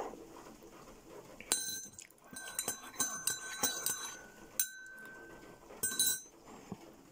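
A spoon clinking against a porcelain coffee mug, several light strikes over a few seconds, each leaving a clear ringing tone.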